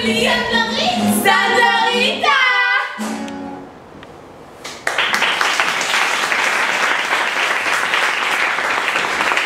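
A woman sings a short phrase with a low steady tone beneath it, dying away about three seconds in. About two seconds later an audience starts applauding, steady applause that carries on.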